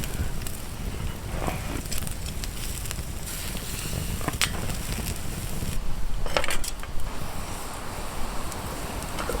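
Campfire crackling, with a few sharp pops over a steady low rumble of wind.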